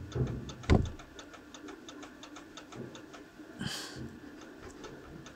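Rapid, even ticking, several a second, with one louder knock about 0.7 s in: the gearbox input shaft rattling in the sprung hub of the clutch driven disc on an Opel Zafira 2.2 diesel with an F35 gearbox. This play in the new clutch disc, not the gearbox, is the source of the knock heard at idle.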